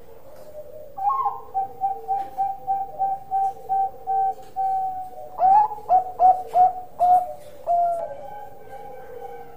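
Zebra dove (Bangkok perkutut) cooing: a quick run of short staccato coos starting about a second in, then a handful of louder, longer coos near the end.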